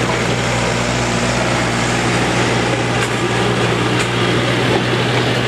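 John Deere farm tractor's diesel engine running steadily under load as it pulls a weight-transfer sled down the dirt track, holding an even pitch.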